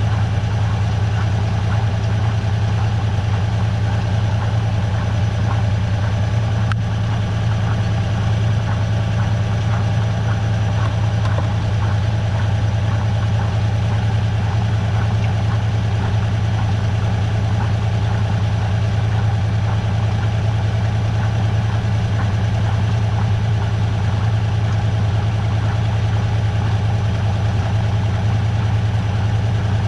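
Washing machine running with balloons in the drum: a loud, unbroken motor hum.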